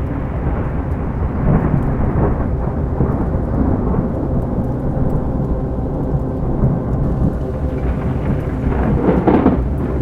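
Rolling thunder over steady rain, with a faint low steady tone beneath; the rumble swells about a second and a half in and again near the end.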